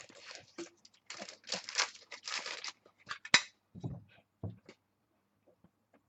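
Rustling and crinkling of plastic packaging and trading cards being handled, in irregular bursts, with a sharp click about three and a half seconds in.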